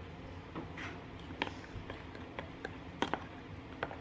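Scattered light clicks and taps at irregular intervals, with a few sharper ones near the middle and about three seconds in.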